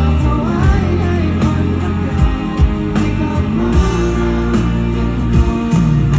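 Live rock band performing, electric guitar over bass and drums, with some singing.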